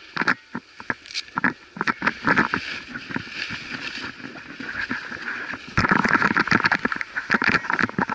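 Skis scraping and chattering over packed, tracked piste snow during a downhill run, an uneven rushing scrape; it grows suddenly louder about six seconds in.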